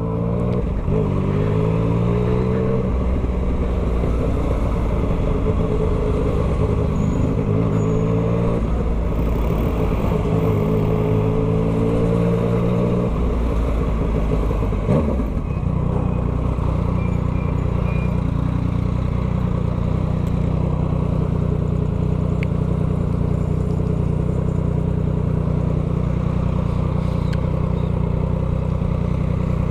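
Yamaha MT-09's crossplane three-cylinder engine breathing through a full Atalla 3x1 aftermarket exhaust, pulling away gently. Its note rises and drops in steps as it changes gears, until about halfway through. It then holds a steady low note for the rest.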